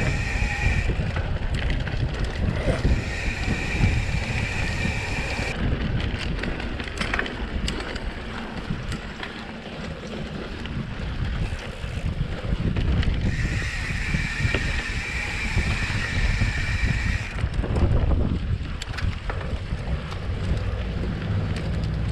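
Mountain bike riding fast on a dirt cross-country trail: wind buffeting the handlebar camera's microphone and tyres rumbling over the ground, with rattles and knocks from bumps. A high buzz comes and goes three times.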